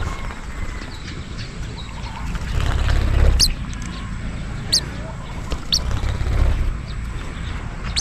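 Wind buffeting the microphone in an uneven low rumble that swells about three seconds in and again near six seconds, with three short, high bird chirps in between.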